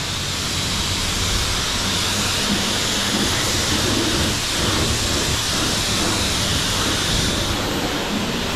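High-pressure rinse wand at a self-serve car wash spraying a jet of water onto a car's bodywork and the ground: a steady hiss.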